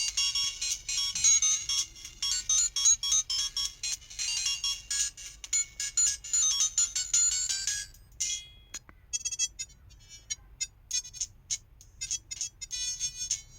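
LG LB2900 mobile phone playing its built-in ringtones: a busy, high-pitched electronic melody that stops about eight seconds in, followed by a sparser run of short beeping notes.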